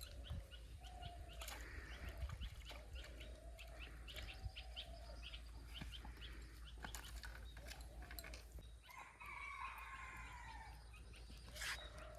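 Birds calling, fowl-like: short calls repeated throughout, with a longer call about nine seconds in, over light clicking.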